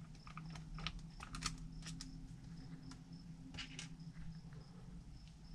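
Light, irregular clicks and taps of small RC-truck parts, screws and hand tools being handled while a wheel is fitted to a Traxxas TRX-4, bunched in the first two seconds and again past the middle.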